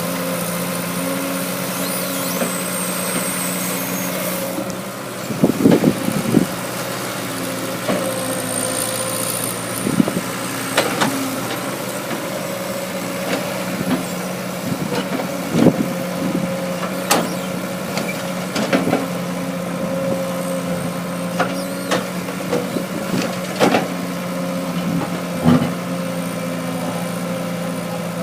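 Caterpillar excavator's diesel engine running steadily while it digs, with scattered short knocks through the work.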